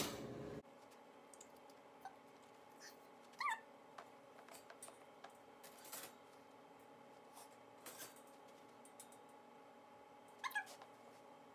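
Puppy giving two brief high whines, one about three seconds in and one near the end, with a few faint clinks from a wire dog crate in between.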